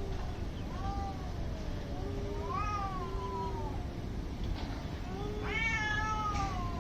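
Two cats yowling at each other in a fight standoff: long drawn-out wails, one a low steady moan, the other higher and rising and falling, the calls overlapping, the loudest near the end.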